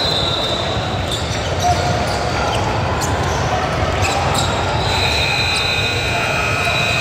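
A basketball bouncing on a gym floor during play, over the murmur of spectators' voices in a large hall.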